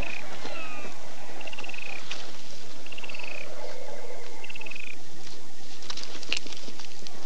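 Swamp creature ambience from the film's Dagobah scenes: a short, slightly falling chirping trill repeats about every one and a half seconds over a steady hiss. A few sharp clicks come near the end.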